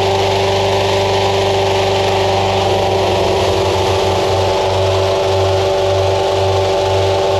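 A hot-air balloon's engine-driven inflation fan runs steadily, blowing cold air into the envelope during cold inflation. It gives a constant hum with a few steady whining tones over a rush of air, and a low throb begins to pulse about halfway through.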